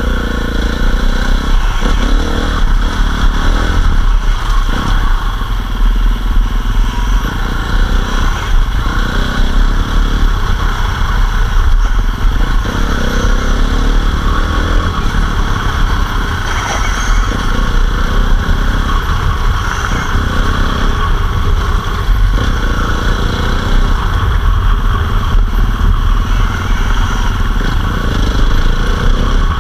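KTM enduro motorcycle ridden at a steady pace along a muddy dirt track, heard from a camera mounted on the bike, with a dense, even rumble throughout.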